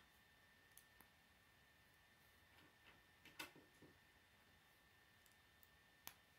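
Faint, sparse clicks of plastic K'nex rods and connectors being handled and snapped together: a couple of light clicks about a second in, a small cluster about three and a half seconds in, and one sharper click near the end.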